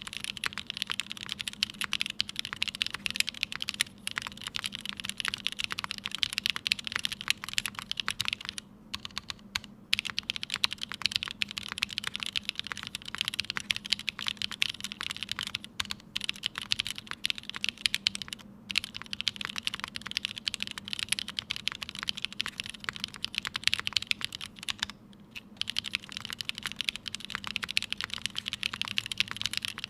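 Fast, steady typing on a custom mechanical keyboard with lubed and filmed linear Cherry MX Black switches (Kailh stems) in an aluminium plate, O-ring mounted, with GMK keycaps. Dense keystroke clacks with brief pauses about nine, sixteen, eighteen and twenty-five seconds in.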